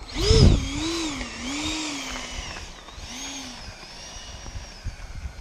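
70mm electric ducted fan of a Freewing F-16 model jet whining as the throttle is worked while taxiing. The pitch rises and falls several times, loudest with a rush of air in the first half second, then settles into a steadier, quieter whine.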